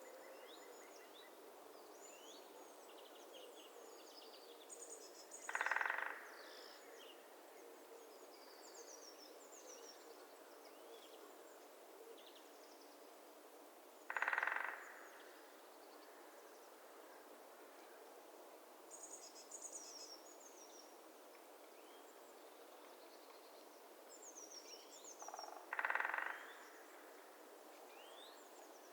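A woodpecker drumming three times, each roll a rapid burst of strikes about half a second long, with small birds calling and twittering in thin high notes throughout. A steady faint hiss of winter swamp ambience lies underneath.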